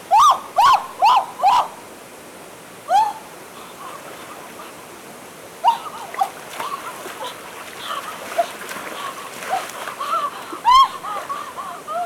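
A series of short chirping calls, each rising and falling in pitch: four in quick succession at the start, then more scattered ones, over the hiss of running water.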